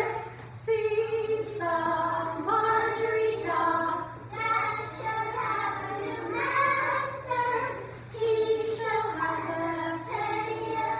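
A group of young children singing a song together, phrase by phrase, with short breaks about every two seconds.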